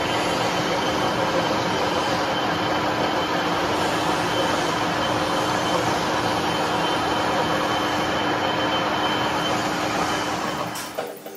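Small metal lathe running steadily while a cutting tool turns down the worn, weld-built-up end of a starter motor armature shaft: a steady mechanical whir with one constant hum through it. It cuts off shortly before the end.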